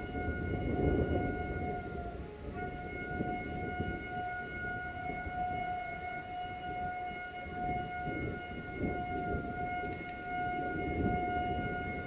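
Horn of CFR class 060-DA diesel-electric locomotive 60-0330-5 sounding one steady tone: a long blast, a short break about two and a half seconds in, then a second long blast that lasts through most of the rest. A low rumble runs underneath.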